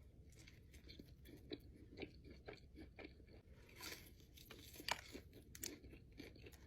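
A person chewing a mouthful of burger close to the microphone: faint, irregular wet clicks and soft crunches, a few louder ones about four to five seconds in.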